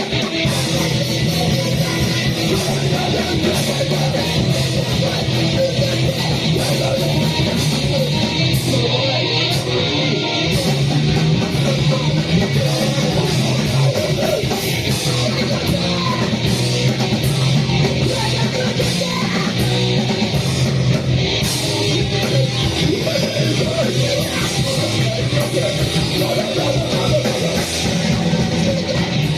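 A live band playing loud, distorted heavy rock with shouted vocals, a dense, unbroken wall of noise.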